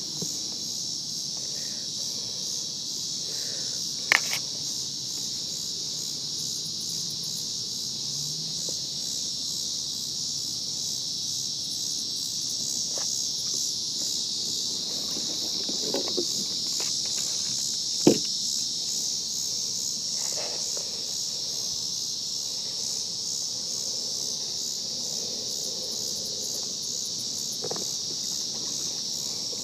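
A steady, high-pitched chorus of insects such as crickets or cicadas. A few sharp knocks break into it, the loudest about 18 seconds in.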